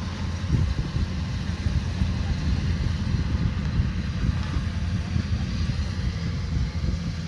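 Kubota DC105X combine harvester running: a steady, low engine rumble with machine noise over it, without let-up.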